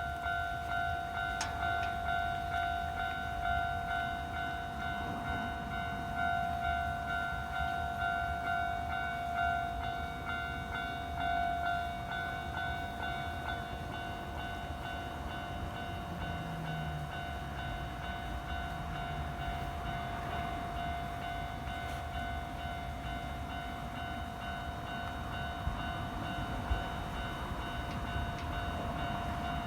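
Japanese railway level crossing alarm ringing on and on in quick repeated strokes, over the low rumble of a train running through the crossing.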